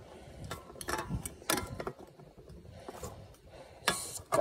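Aluminium drink cans being set down and stacked on a plastic bin lid: a run of light clinks and knocks, can on can and can on plastic, with a firmer knock near the end.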